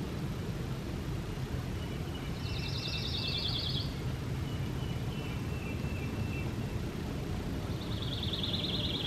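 A small songbird singing a rapid trill about a second and a half long, twice, over a steady low rumble.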